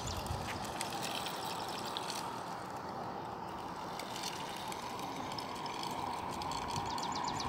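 Outdoor street ambience: a steady hiss, with a rapid dry trill of high clicks, about ten a second, at the very start and again near the end.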